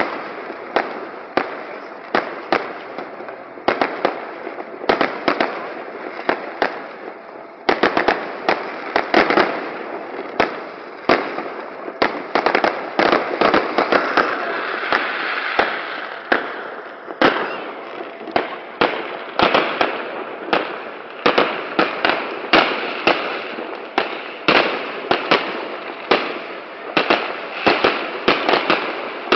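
Fireworks display: aerial shells bursting in a continuous string of sharp bangs, about two a second, over a steady background of noise.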